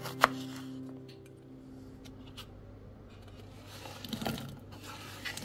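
A knife chops once against a bamboo cutting board just after the start while background guitar music dies away. About four seconds in comes a short cluster of soft clicks and patters as diced cucumber drops into a glass bowl.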